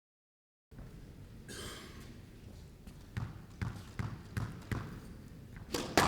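Squash ball struck back and forth in a rally, a sharp knock of ball on racket and walls every half second or so, the last knocks the loudest, over a low hum of the hall.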